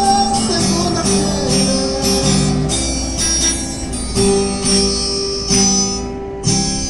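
Acoustic guitar music: strummed chords, one stroke about every half second to a second, each left ringing.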